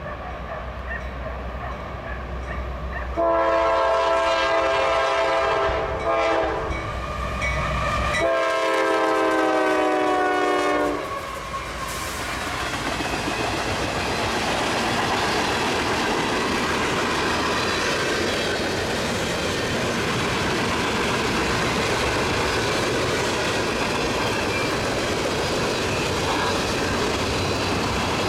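Diesel freight locomotive rumbling on approach, then sounding two long air-horn blasts, the second falling in pitch as the locomotive goes by. Then the freight cars roll past with a steady rushing clatter of wheels on rail.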